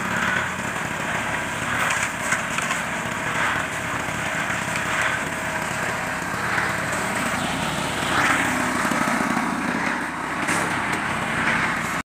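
A small engine running steadily, with irregular scraping and knocking noise over it.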